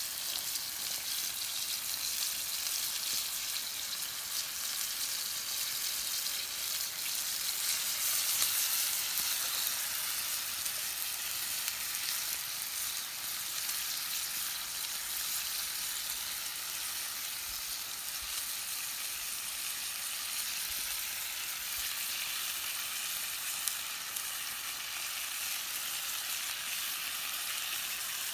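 Beef steaks sizzling in a steel pan over a wood fire: a steady hiss with fine crackle.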